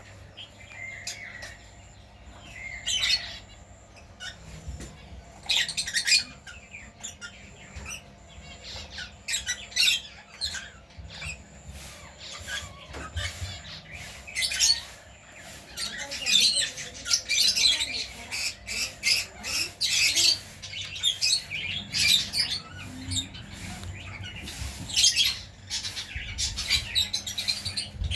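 Birds calling, a string of short chirps and squawks that come thicker and faster in the second half.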